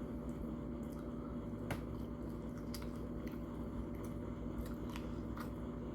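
A person chewing a taco, with soft, scattered mouth clicks and squishes over a steady low hum.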